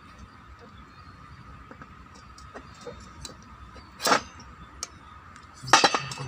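Small clicks and knocks of parts and tools being handled during brush cutter reassembly, with one louder clatter about four seconds in and a quick run of knocks near the end.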